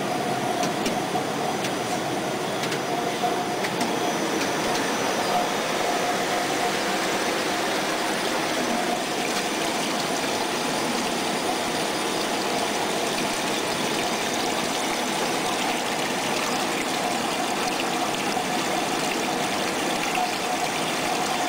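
Steady running noise of a PS foam profile extrusion line: an even machine hiss with a faint steady whine.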